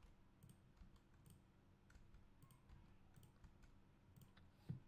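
Near silence, with faint scattered clicks of a computer keyboard and mouse as shortcut keys are pressed, and one soft low thump near the end.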